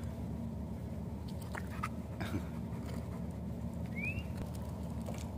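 Steady low industrial hum, with a few faint clicks and one short high chirp about four seconds in.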